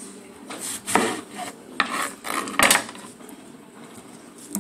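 Kitchen knife cutting a red onion on a wooden cutting board: a few sharp knocks and scrapes of the blade on the board in the first three seconds, the loudest near the end of them, then quieter handling.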